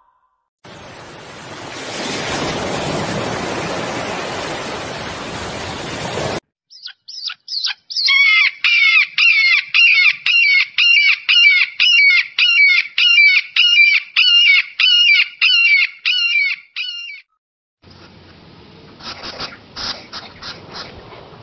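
A steady rushing noise for about six seconds, then a hawk calling: a long run of sharp, repeated cries, about two a second, for some ten seconds. Near the end, faint rustling and clicks.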